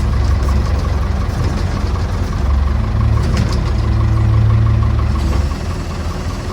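Massey Ferguson BX 50 backhoe's engine running under load on a second try at climbing a steep hill. It works harder from about three and a half seconds in, then eases off about five and a half seconds in as the climb is given up.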